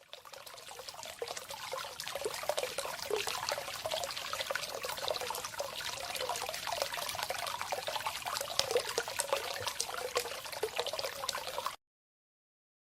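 Hot spring water flowing and splashing steadily. It fades in over about two seconds and cuts off abruptly near the end.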